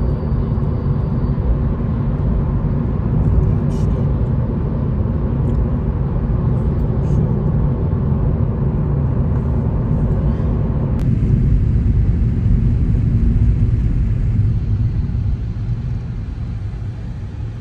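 Steady low rumble of road and engine noise inside a moving car's cabin, tyres running on tarmac at speed. The higher hiss drops away abruptly about eleven seconds in, and the noise eases a little near the end as the car comes up to traffic lights.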